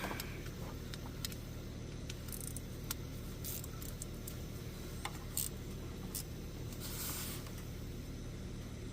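Scattered light clicks and short metallic rattles of hand tools and parts being handled, over a steady low hum.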